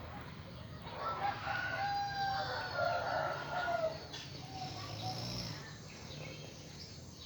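A rooster crowing, one long call starting about a second in, with a fainter call after it, over a low steady rumble.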